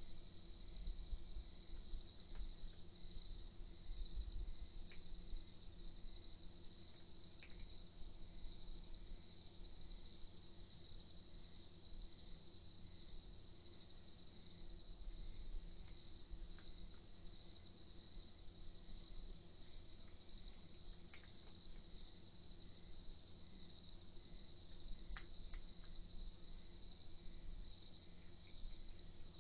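Crickets chirping in a steady night chorus, an even pulsing high trill that does not let up, over a faint low hum.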